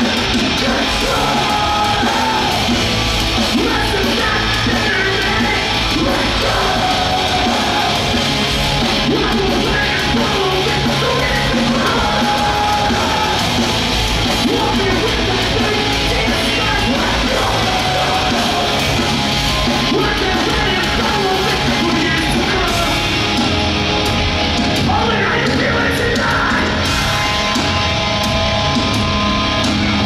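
Live hardcore punk band playing loud: distorted electric guitars, bass and drums under shouted, yelled vocals, as one steady wall of sound.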